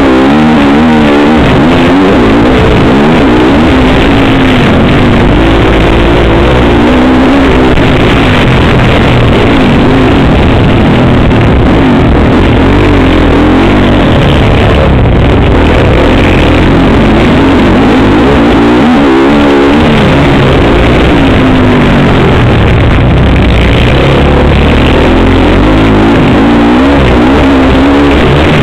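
Motocross bike engine revving up and down over and over as it is ridden hard around the track, heard close up from a camera on the bike. Very loud and distorted, overloading the microphone.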